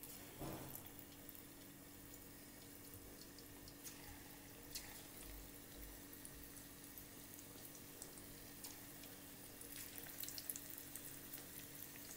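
Faint sizzling and crackling of corn bhaji (corn fritter) batter frying in hot oil, with a soft plop as batter goes into the oil about half a second in. The small pops grow busier near the end as the fritters fry.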